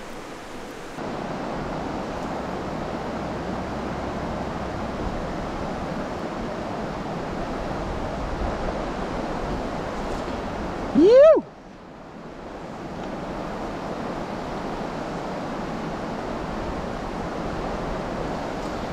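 Steady rush of river water running over stones, with a short, loud shout rising in pitch about eleven seconds in.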